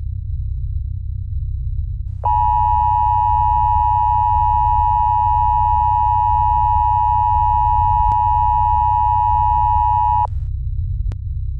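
Emergency-broadcast attention tone: a loud, steady electronic beep held for about eight seconds, starting about two seconds in and cutting off suddenly. A constant low drone runs underneath.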